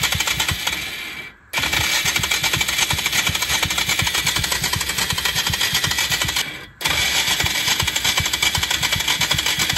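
Polaris Sportsman 335 ATV's electric starter cranking in three goes, with two short breaks, each a fast rhythmic clatter; the engine does not catch.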